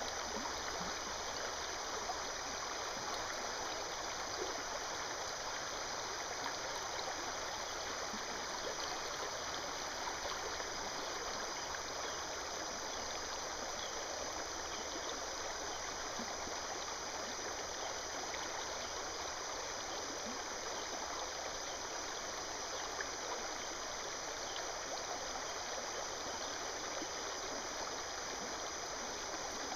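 Shallow river current running over rocks, a steady rushing and trickling of water.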